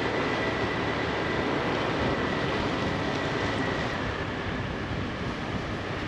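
Motor scooter riding along: a steady rush of wind and engine noise, with a faint steady high whine that fades about two-thirds of the way through.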